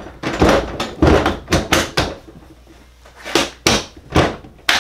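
Knocks and clunks of tools and their cases being handled and set down: a quick run of them in the first two seconds, then four separate knocks near the end.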